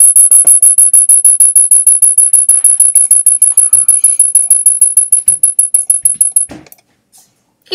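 A loud, very high-pitched ringing tone pulsing rapidly, about eight pulses a second, which fades and stops about six and a half seconds in.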